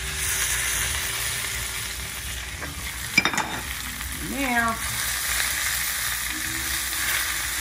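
Eggplant and mushrooms sizzling in hot olive oil in a stainless steel skillet. The sizzle gets louder just after the start as the fried eggplant is poured back into the pan, and the food is then stirred with a spatula, with one sharp clink about three seconds in.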